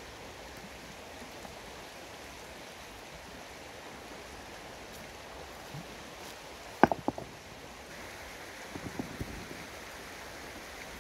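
Steady outdoor background hiss, with a quick cluster of three sharp knocks a little before seven seconds in and a few softer crackles around nine seconds.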